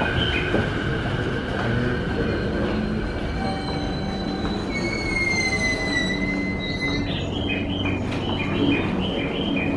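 Electric commuter train running along the platform with rumbling and a high-pitched wheel squeal that glides downward in the middle. About seven seconds in, a repeating series of short high notes starts.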